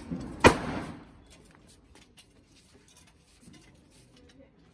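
A single sharp firecracker bang about half a second in, then only faint scattered clicks.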